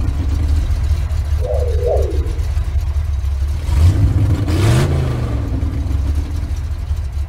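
Recorded car engine running and revving, with a rise in pitch and a broad whoosh about four seconds in. A short rising-and-falling electronic sweep sounds once, near two seconds in.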